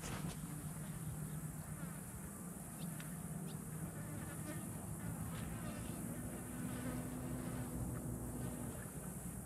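A fly buzzing close to the microphone, a low droning hum that wavers in pitch and holds steadier for a few seconds in the second half. A few faint ticks come through.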